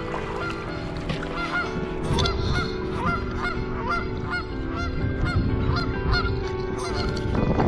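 Geese honking repeatedly, many short calls a second, over a low rumble.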